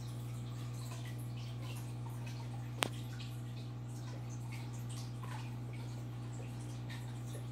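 Aquarium filter running: a steady low hum with water trickling and dripping. A single sharp click about three seconds in.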